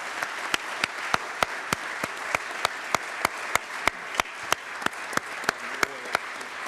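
A chamber full of people applauding, with one nearby pair of hands clapping steadily at about three claps a second above the general clapping, which thins out toward the end.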